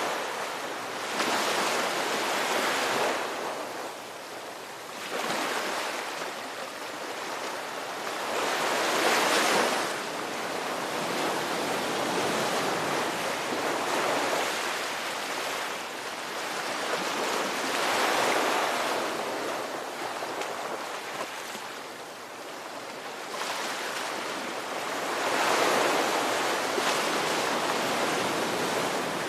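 Ocean surf: waves washing in and drawing back, swelling and easing every few seconds.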